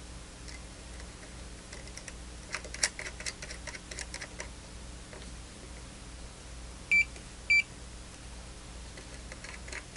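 Small metallic clicks as an SMA short calibration standard is screwed onto a NanoVNA-F V3 analyzer's port, then two short high beeps from the analyzer about half a second apart as the short calibration step is taken.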